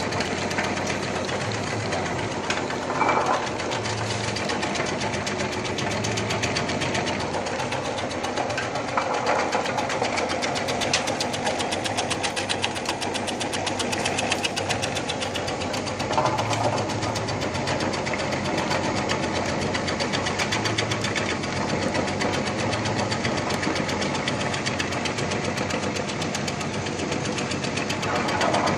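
Electric onion slicing machine running steadily, its motor and blade making a fast, even mechanical clatter, with a few brief louder swells.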